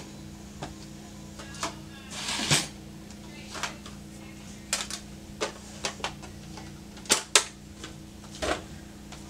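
Irregular sharp clicks and light knocks of small makeup containers being handled and opened, with a short rustle about two and a half seconds in, over a steady low hum.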